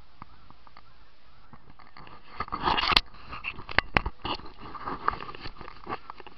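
Handling noise as the camera is bumped and shifted. There is a rough scraping and rustling burst a little before halfway, then a couple of sharp knocks and some scattered crackling as it settles.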